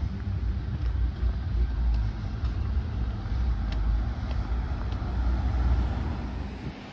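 Road traffic rumble from cars on the adjacent street, a heavy, uneven low rumble with a few faint ticks over it, dropping away suddenly at the very end.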